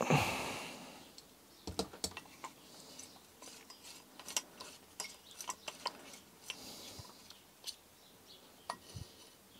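Irregular light clicks and taps of metal parts as a Cannondale Headshok damper unit is turned and unscrewed by hand inside the fork steerer, with a brief louder rustle right at the start.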